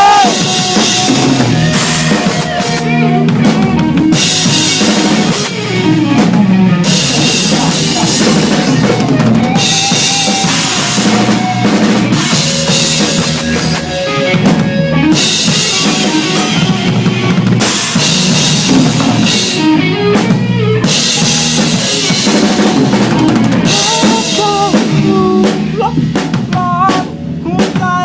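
A rock band playing live, with the drum kit loud throughout: bass drum and snare to the fore, under the band's pitched instruments.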